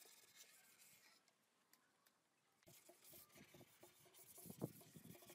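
Near silence with faint rubbing and light knocks of hands handling a wooden pallet-board table, one sharper tap about four and a half seconds in.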